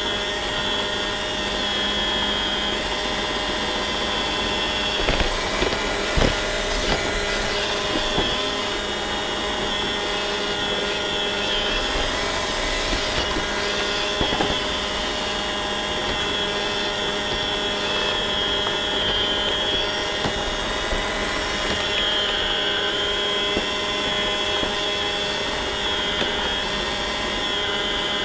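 Roomba robot vacuum running, heard from on board: a steady whir of its vacuum and brush motors with a high whine. A few light knocks come about five to eight seconds in and again near fourteen seconds.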